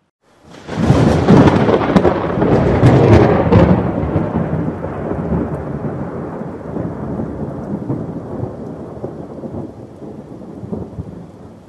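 Thunderclap: a sudden loud crack about half a second in, crackling for about three seconds, then a long rumble that slowly dies away, with rain under it.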